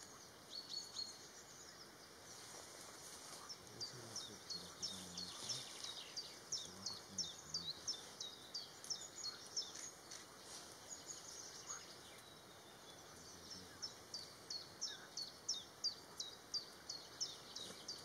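A bird calling in long runs of short, high, downward-slurred notes, about three a second, with a short pause about two-thirds of the way through.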